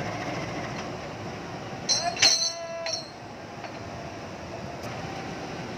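Diesel-electric locomotive idling while it couples onto a train's carriages. About two seconds in there is a sharp metallic clank with a brief ringing tone, lasting under a second.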